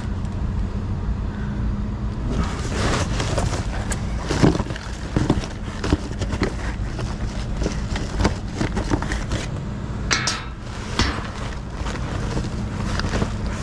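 Hands rummaging through trash and scrap: scattered clinks, knocks and rustles of debris being shifted, over a steady low hum.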